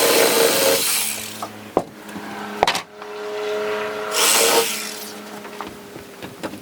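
A power saw cutting wood; the cut ends about a second in. Two sharp knocks follow, then another short burst of noise.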